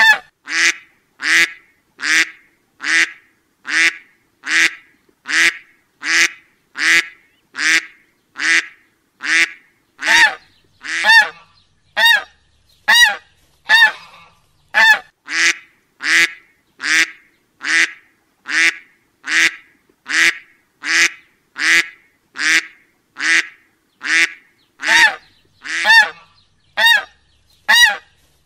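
Duck quack sound effect repeated at an even pace, a little more than one call a second. Each call is a short, nasal honk with clean silence between, as in a looped recording.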